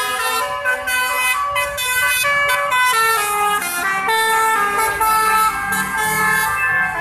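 Musical vehicle horn of the telolet kind playing a tune of short stepped notes, several tones sounding together.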